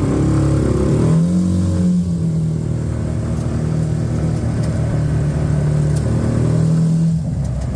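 Small farm utility truck's engine running under way. It speeds up about a second in, then holds a steady pitch, and eases off near the end.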